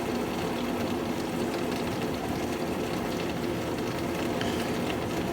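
Amana dishwasher filling during its diagnostic test cycle: water runs in steadily through the open inlet valve, with a constant hum.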